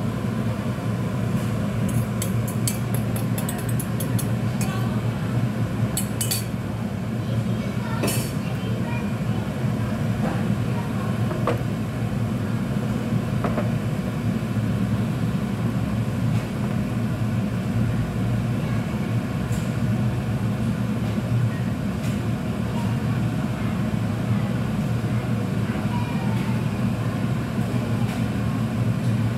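Steady low hum with scattered sharp clinks of a utensil against a frying pan, most of them in the first eight seconds or so.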